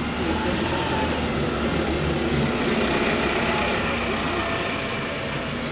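A motor vehicle's engine running close by amid street traffic noise.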